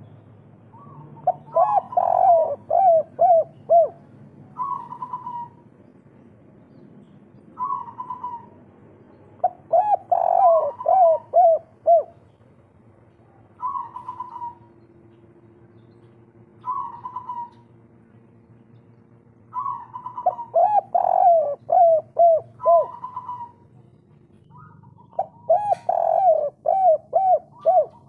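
Spotted dove cooing: four song phrases, each a run of quick, hooked coos lasting two to three seconds, with single short coos between them. This is the 'kuk 3' song type of a local bird.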